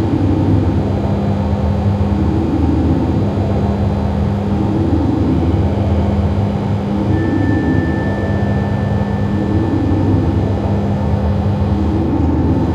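Loud experimental noise-music loop: a dense, low droning noise that repeats in a cycle of about two and a half seconds. A thin, steady high tone comes in about seven seconds in and stops just under three seconds later.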